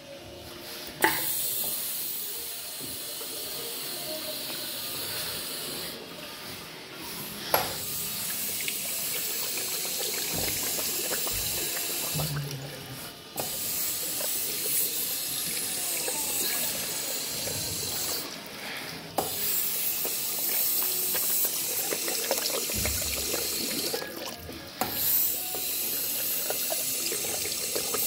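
Tap water running into an Ideal Standard wall-mounted ceramic washbasin and splashing toward the drain. The flow starts with a sharp knock about a second in, then eases off and restarts with a knock about every six seconds, four more times.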